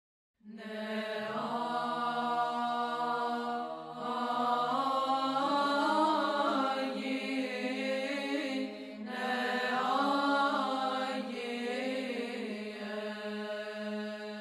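Orthodox church chant: voices singing a slow, winding melody over a steady held drone note, beginning about half a second in.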